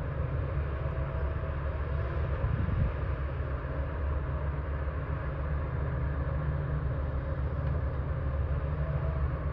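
Heavy diesel machinery running steadily with a deep, continuous engine rumble and a faint whine.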